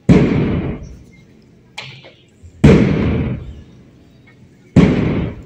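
Three loud bangs about two and a half seconds apart, each starting suddenly and fading away over about half a second.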